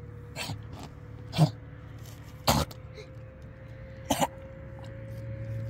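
A few short, sharp cough-like sounds, four in all, the loudest about a second and a half in, over a steady low hum.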